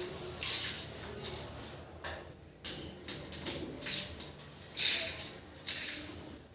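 Hard objects being handled: a string of short scrapes and clinks, about six of them at uneven intervals.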